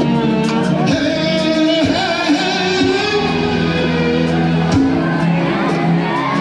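Live Moroccan chaabi music: a man singing over a band of keyboards, violin and drums, with occasional drum strikes.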